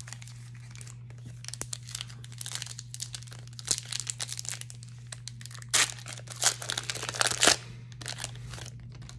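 A foil trading-card pack wrapper being crinkled and torn open by hand. Irregular sharp crackles grow denser and louder in the second half.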